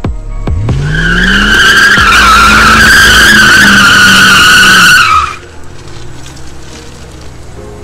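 A 1999 Ford Mustang GT's 4.6-litre V8 revs up and is held high while the rear tyres spin and squeal loudly in a smoky burnout. The squeal cuts off about five seconds in.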